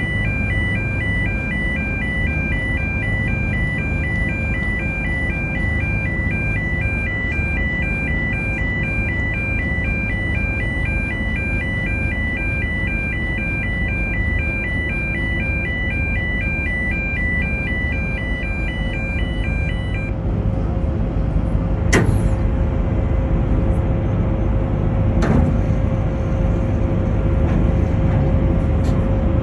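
A two-tone electronic warning alarm alternating quickly between two pitches over the low rumble and steady hum of a ferry's engines; the alarm cuts off about two-thirds of the way through, leaving the rumble with a few sharp knocks.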